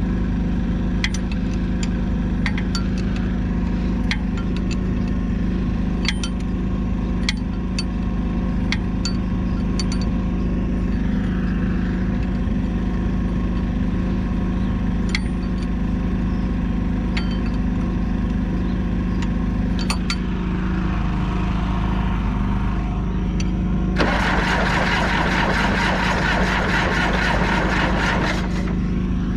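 Diesel engine of a 1976 John Deere 450C bulldozer running steadily at a constant speed, with scattered light ticks, and a louder rushing noise over it for about four seconds near the end.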